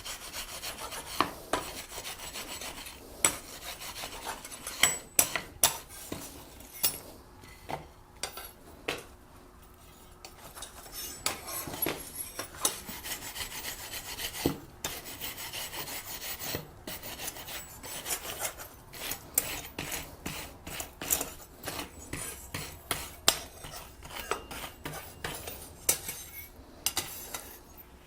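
Wire brush scrubbing a hot-forged steel snowflake ornament: a continuous scratchy rasping, broken by frequent sharp clicks of metal on metal.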